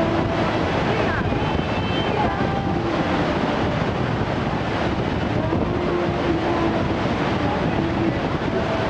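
Klosfossen waterfall: a steady, loud rush of falling water that does not change.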